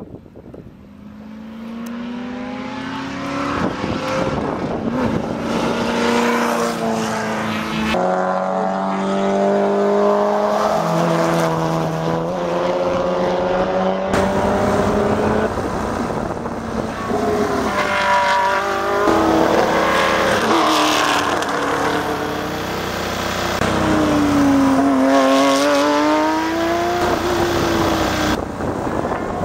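Vintage race car engines accelerating and going past one after another, the engine note rising and falling as the cars speed up, slow for corners and pass.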